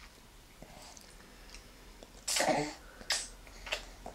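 A sudden, sneeze-like burst of breath from a person about two seconds in, followed by two shorter, weaker ones.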